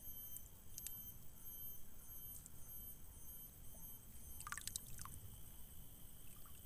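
Quiet open-air background: a low steady rumble and faint high steady tones, with a few soft clicks and a short cluster of them about four and a half seconds in.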